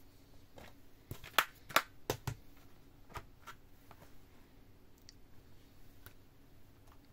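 Plastic DVD cases being handled: a quick run of sharp clicks and snaps about a second in, the loudest two close together, typical of a case snapping shut, then a few lighter clicks.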